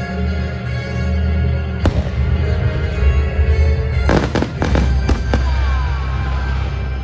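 Fireworks bursting over loud music with heavy bass: one sharp crack just under two seconds in, then a quick run of cracks between about four and five and a half seconds.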